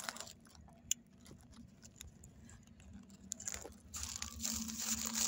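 Rustling and crinkling of something rubbing close against the microphone, with a single sharp click about a second in; the rustling grows loud from a little past the middle.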